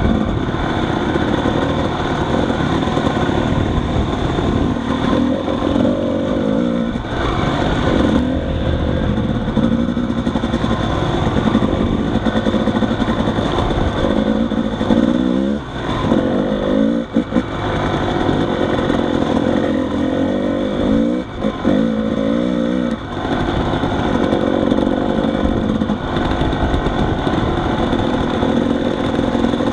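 Dirt bike engine running at low trail speed, heard from on the moving bike. Its revs drop and climb again several times around the middle.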